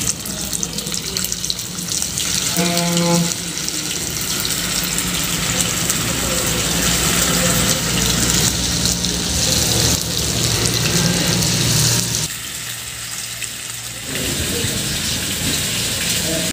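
Marinated chicken pieces sizzling in hot oil in a nonstick wok as they are dropped in one by one. The sizzle grows as more pieces go in, dips briefly near the end, then returns.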